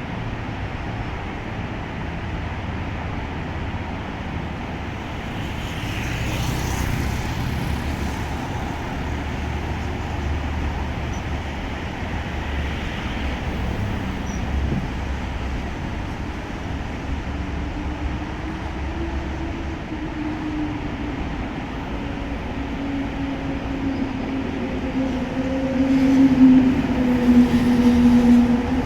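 Diesel locomotive hauling a freight train: a steady low rumble, with the engine's droning note coming in and growing louder over the last ten seconds.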